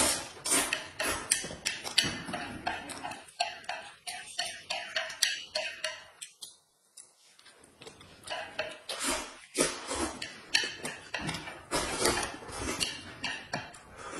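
Noisy eating at the table: slurping and mouth smacking over noodle soup, in a fast, irregular run of wet clicks and smacks, with a short pause about halfway.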